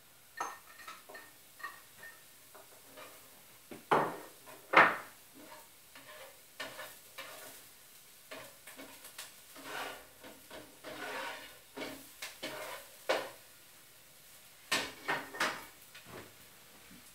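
Kitchen clatter: dishes and utensils being handled and set down, a run of scattered knocks and clinks with two sharper clanks about four and five seconds in.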